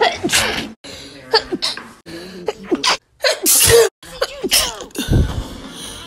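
A woman sneezing: several separate sneezes cut back to back, the loudest a sharp burst a little past the middle.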